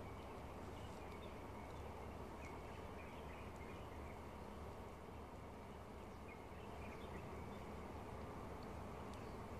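Faint outdoor ambience: a steady low rumble with scattered faint high chirps and ticks.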